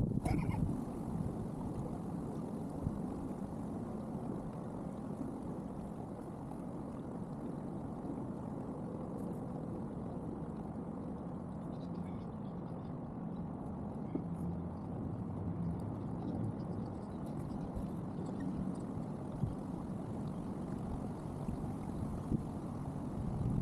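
Steady low rumble of wind buffeting the microphone, mixed with water washing and gurgling against a kayak hull, with a few faint light knocks.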